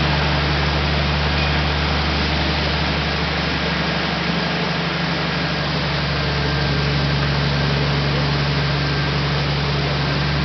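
Engine running steadily at an even low pitch, with a constant hiss over it.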